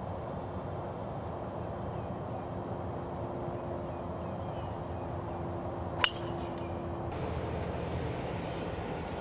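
A golf driver striking a ball off the tee: one sharp crack about six seconds in, over a steady background hiss.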